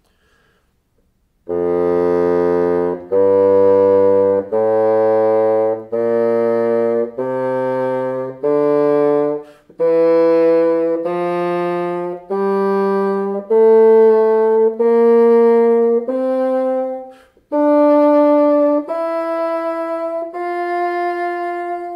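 Bassoon playing a slow F major scale, about fifteen held notes climbing step by step over two octaves from low F, beginning about a second and a half in. It is a pitch test of a freshly adjusted handmade double reed against a tuner, and on some notes the reed rides a little sharp.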